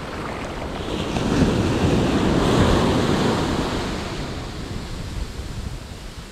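Ocean surf washing up a sandy beach: a rush of water that swells about a second in, is loudest a second or two later, and ebbs away, with wind buffeting the microphone.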